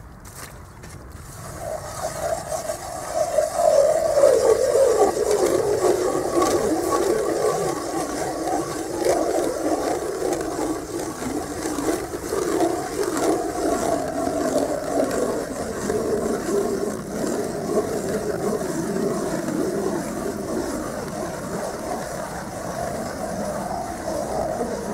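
Hand ice auger drilling into river ice as it is cranked round: a steady grinding scrape of the blades cutting ice, starting about two seconds in.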